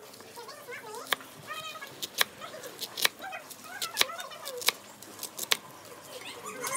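A kitchen knife cutting through a soft block of congealed blood and knocking on a wooden chopping board, about six sharp knocks roughly a second apart. High wavering calls sound in the background.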